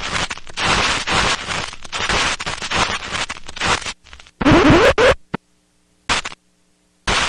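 Logo-intro sound effects: harsh, scratchy crackling noise with sharp cracks for about four seconds. Then a brief burst with rising, sliding pitches, and two short noise bursts near the end.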